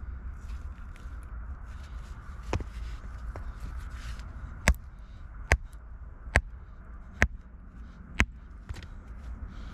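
Five sharp knocks about a second apart in the second half, like a hammer striking rock, with a weaker knock a couple of seconds earlier, over a steady low rumble.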